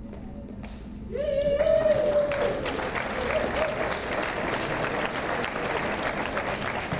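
Audience applauding and cheering, breaking out about a second in. A long cheering shout rises over the first few seconds of clapping.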